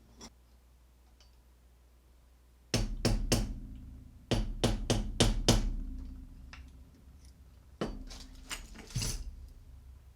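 Sharp metallic taps on a screwdriver, driving in the pin of an American Lock Series 200 padlock core against an anvil, to push the pin in so the core can turn. There are three quick taps about three seconds in, five more a second later, and a few more near the end.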